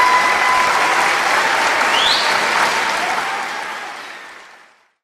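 Audience applause and cheering, with a short rising whistle about two seconds in, fading out near the end.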